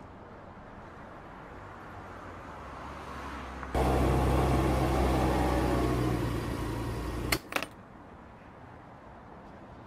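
A motorbike engine draws closer, then runs loud and close with a steady low hum for a few seconds before cutting off abruptly. Two sharp clicks follow.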